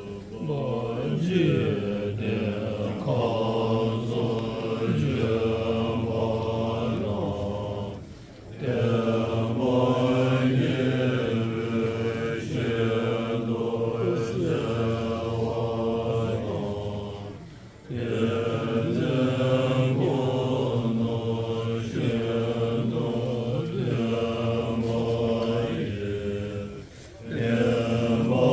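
Group of Tibetan Buddhist monks chanting a prayer together in low voices, in long phrases broken by short pauses for breath about every nine seconds.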